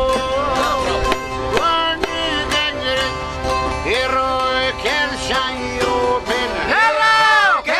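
Live Albanian folk music from a small band with accordion, çifteli and frame drum: a sliding, ornamented melody over held accordion notes and a steady drum beat.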